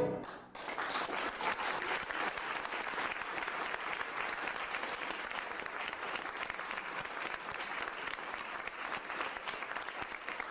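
A violin's final bowed note ends right at the start, and about half a second in an audience breaks into steady applause that carries on throughout.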